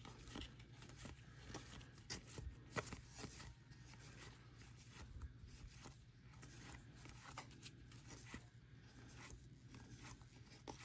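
Faint handling of baseball trading cards and their pack: soft rustles and scattered small clicks and flicks as cards are slid and flipped, over a low steady hum.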